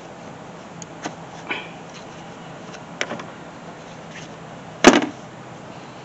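Hands working at a car's under-hood fuse and relay box: a few small plastic clicks, then one loud, sharp clack about five seconds in.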